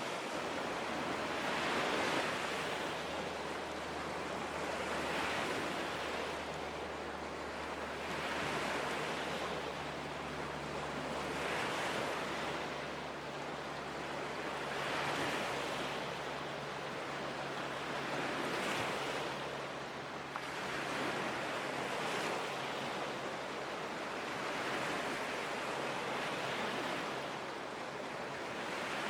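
Lake waves washing in one after another, each swelling and falling away about every three to four seconds.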